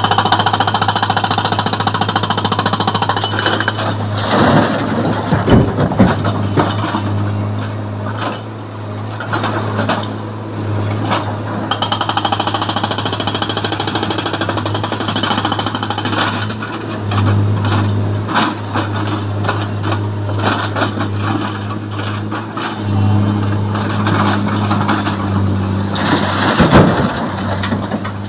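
Sany hydraulic excavator's diesel engine running steadily, swelling under load a few times as it works. Rocks crash into the truck's steel bed in clusters of heavy impacts about five seconds in and again near the end as the bucket dumps its load.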